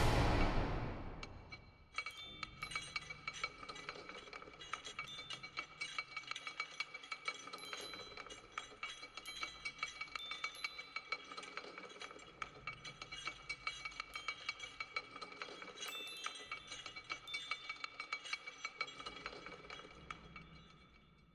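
Light metallic tinkling and clinking, many small clinks over a faint steady ringing, like small chimes or chain links. A louder swell dies away in the first second or two before the tinkling settles in.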